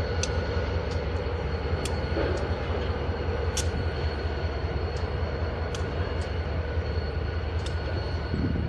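NYSW diesel-electric locomotive drawing slowly closer, its engine giving a steady low drone, with short sharp clicks about once a second from the moving train.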